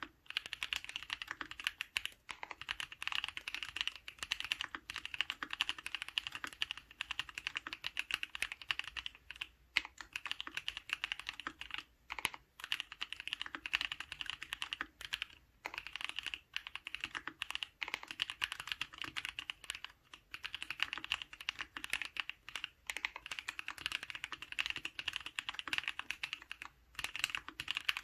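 Typing on a custom Archon FX mechanical keyboard with a stainless steel plate, lubed paco switches (NovelKeys Cream housings with Halo stems) and GMK keycaps: a fast, continuous run of keystroke clacks with short pauses every few seconds.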